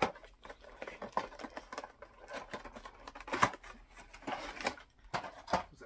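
Cardboard figure box being opened by hand: tabs and flaps popping and the box sliding apart over its plastic tray, an irregular run of small clicks, scrapes and crinkles, the loudest about three and a half seconds in.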